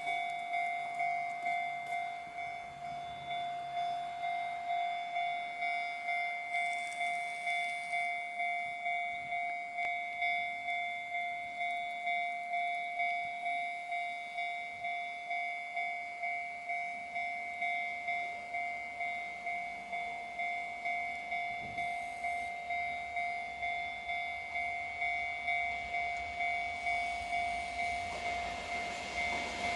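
Railway level-crossing warning bell ringing steadily at about one and a half strikes a second, signalling an approaching train. In the last couple of seconds the running noise of an EF64 electric locomotive and its empty hopper wagons rises under the bell.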